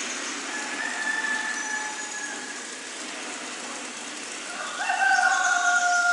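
Steady rain-like hiss of water from the nativity diorama's water effects. A faint held tone sounds about a second in, and a louder drawn-out tone with several pitch layers comes in about five seconds in, sliding slightly down.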